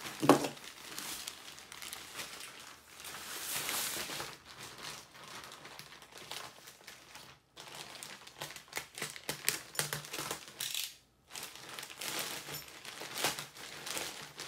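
Plastic poly mailer bag crinkling and rustling as it is handled and torn open, with irregular short crackles of the plastic.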